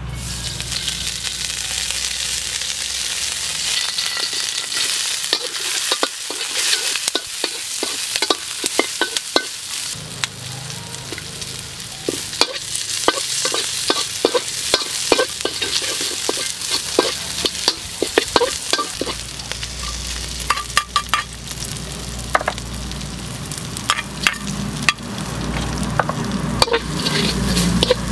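Garlic, chillies and kaffir lime leaves sizzling in hot oil in a steel wok, with a metal spatula scraping and clinking against the wok again and again as they are stir-fried.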